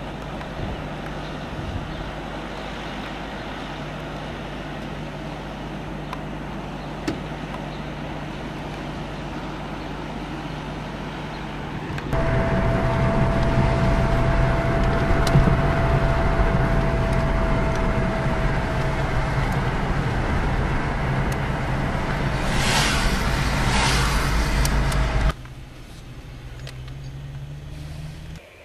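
Steady low rumble of a car driving. It jumps louder about twelve seconds in, where a thin steady whine joins it, and drops away sharply near the end.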